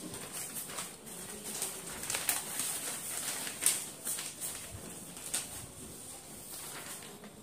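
Sheets of paper rustling and crackling as they are handled and shuffled, in short irregular strokes.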